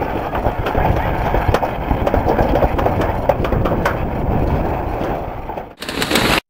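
Toboggan sled running fast down a metal toboggan chute: a steady rumble and rattle with many small clicks from the sled on the track. Near the end the sound cuts abruptly to a brighter rushing noise that stops dead.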